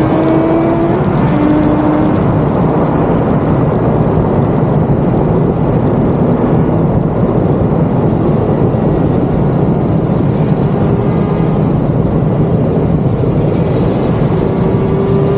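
Wind rushing over the camera microphone of a motorcycle at road speed, with the Suzuki RG500's square-four two-stroke engine running steadily beneath it. In the last second or so the engine note climbs slowly as the bike gathers speed.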